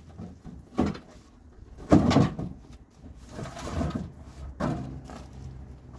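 A microwave oven's metal casing struck one heavy blow about two seconds in, a sharp crunching bang that is the loudest thing here, with lighter knocks and clatter before and after it. The blow caves the casing in.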